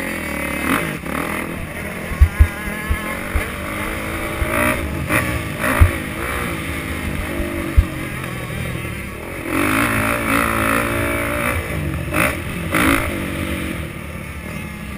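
Dirt bike engine revving up and down as it is ridden round a motocross track, heard from a helmet-mounted camera with wind rushing over the microphone. Several sharp low thumps stand out as the loudest sounds, two close together about two seconds in and others near six and eight seconds. The engine revs hardest about two thirds of the way through.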